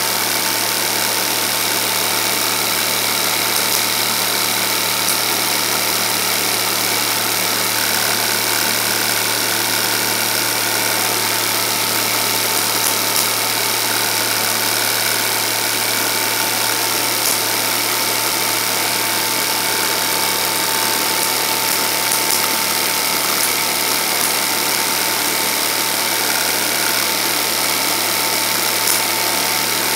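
Film projector running: a steady mechanical whirr with a constant low hum and a thin, steady whine above it.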